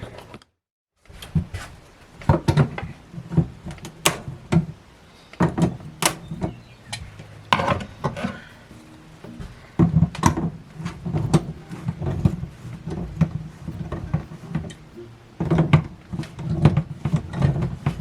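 Irregular knocks, clunks and clicks of hands handling a replacement kitchen faucet and its fittings at a kitchen sink, with a moment of dead silence near the start.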